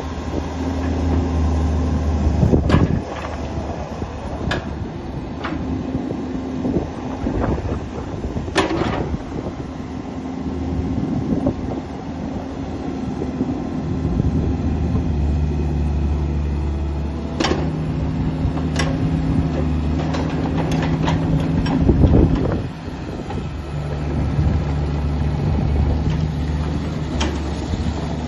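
2020 Bobcat E45 mini excavator's diesel engine running under working load as the machine slews and works its hydraulics, the engine note rising and falling. Several sharp clanks from the working equipment break in, the loudest about two-thirds of the way through.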